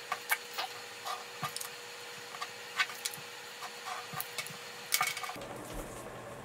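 Pencil scratching on paper in short strokes along a card used as a straight edge, with light taps and rustles as the card is moved about.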